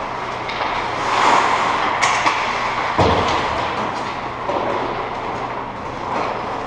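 Ice hockey play in an indoor rink: a steady scraping and rumble of skates on the ice, with stick and puck clacks, and a sharp knock about three seconds in.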